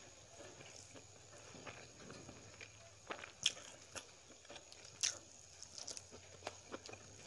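Close-miked chewing and mouth sounds of someone eating fried fiddlehead fern and rice, with a few short sharp clicks, the loudest about three and a half and five seconds in.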